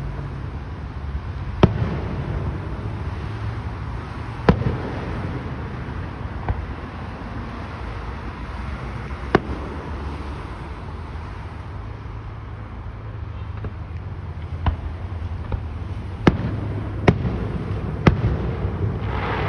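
Aerial fireworks bursting one at a time at irregular intervals, about eight sharp reports spread over a steady low rumble.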